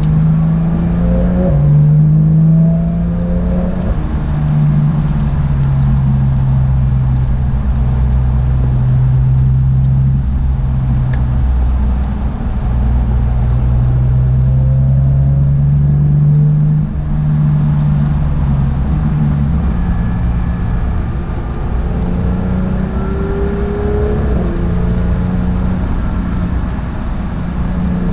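Porsche 911 GT3 (992)'s naturally aspirated flat-six heard from inside the car on track, its note rising and falling at moderate revs and stepping in pitch again and again as the PDK gearbox shifts, over a steady low rumble.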